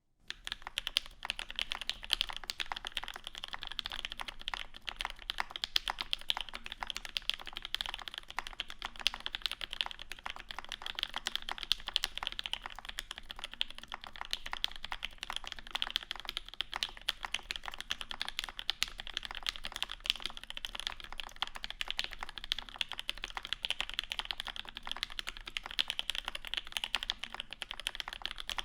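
Mechanical keyboard with lubed Alpaca linear switches on a 1.5 mm UHMWPE plate and GMK keycaps, typed on continuously in a fast, uneven run of keystrokes. The sound is deep, with the bright pops slightly damped by the soft plate. The typing starts at once out of silence.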